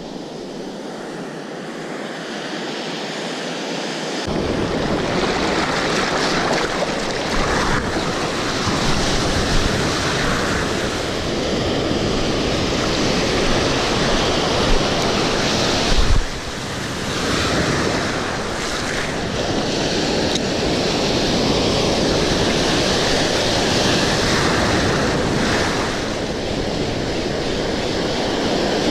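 Ocean surf washing and breaking around a wading angler, with wind buffeting the microphone. The surf gets louder about four seconds in. There is a single brief thump about halfway through.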